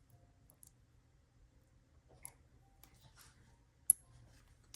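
A few faint clicks and rustles of small costume-jewelry pieces being handled, with one sharp click about four seconds in.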